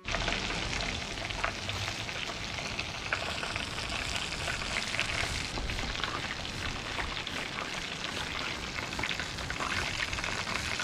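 Breaded chicken pieces deep-frying in hot oil in a small pan: a steady sizzle with a crackle of fine bubbling.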